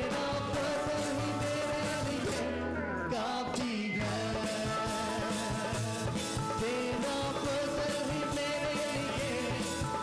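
Live Urdu/Hindi worship song: voices singing into microphones over a band, with a hand-played dholak barrel drum keeping a steady beat.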